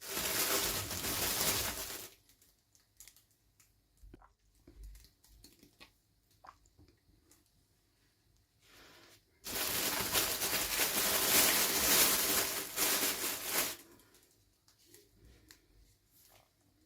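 Toy packaging being torn and crinkled open in two stretches: one of about two seconds at the start and a longer one of about four seconds in the second half. Light taps and clicks of handling fall between them.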